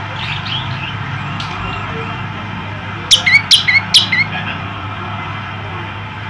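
Male prenjak lumut, a tailorbird, calling: soft chirps, then about three seconds in a quick run of loud, sharp notes over about a second, each dropping steeply in pitch.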